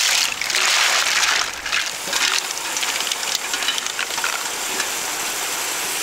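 Liquid poured from a pot over mussels in a hot steel pan, hissing loudly at first, then crackling and settling into a steadier, quieter sizzle.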